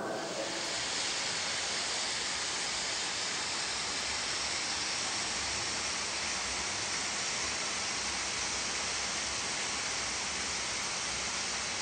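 High-pressure atomizing paint spray guns spraying a truck chassis frame: a steady, even hiss.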